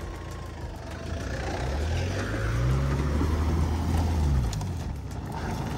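An off-road 4x4's engine revving up under load as it climbs a rocky slope. The revs rise for a few seconds, then ease off near the end.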